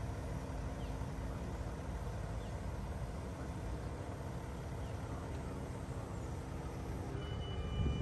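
Crane truck's diesel engine running steadily, driving the hydraulics of a Fassi knuckle-boom crane holding a boat in the air. About seven seconds in, a high electronic beeping starts: the crane's overload sensor warning that the load is getting too heavy.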